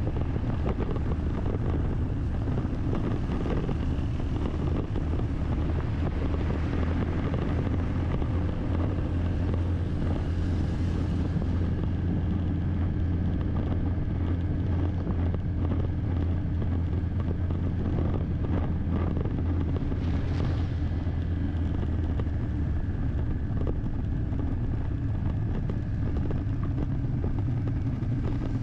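Car running along a road, heard from inside the cabin: a steady low drone of engine and tyre noise with a hiss above it. The hiss swells briefly about ten and twenty seconds in.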